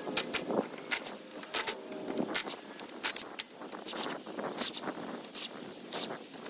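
Sharp metallic clicks and clinks, roughly two a second and irregular, from hand tools working the wheel bolts loose to take the wheel off.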